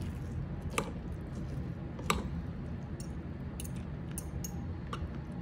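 Two metal forks shredding slow-cooked chicken in the sauce inside a Crock-Pot's ceramic insert: wet squishing with a few sharp clinks as the forks strike the crock. A steady low hum runs underneath.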